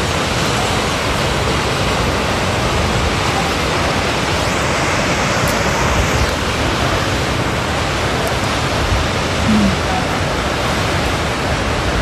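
Steady rushing noise of the Baatara Gorge waterfall plunging into the limestone sinkhole, with a low rumble of wind on the microphone.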